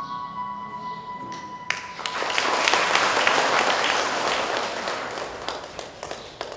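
The dance music ends on a few held notes, then an audience applauds, swelling about two seconds in and dying away near the end.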